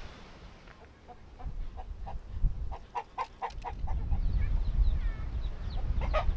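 Domestic chicken clucking: a quick run of short clucks beginning about a second in, then a few thinner, higher calls near the end, over a low rumble.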